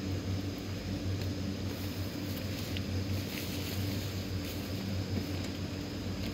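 Steady low hum of the electric blower fans keeping a yard full of Halloween inflatables up, under a constant hiss.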